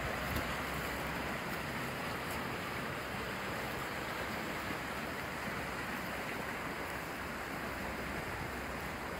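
Creek swollen by two days of rain, running high and fast with a steady rushing of water.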